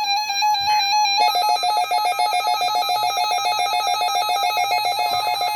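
Weather radio alert alarms going off: a steady electronic beep, then, about a second in, a rapidly warbling electronic alarm takes over. They are set off by a NOAA Weather Radio warning alarm test.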